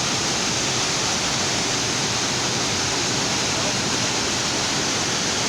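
Waterfall: a steady rush of falling water, loud and unbroken.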